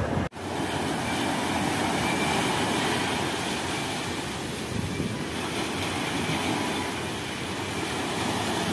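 Surf washing onto a sandy beach, with wind blowing on the microphone: a steady rushing noise that drops out for a moment just after the start.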